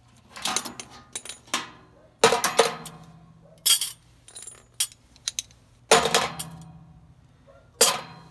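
Steel Allen keys being dropped and rattling into a sheet-metal blower wheel and housing: a series of sharp metallic clinks and clangs, each ringing on. The loudest come about two, six and eight seconds in.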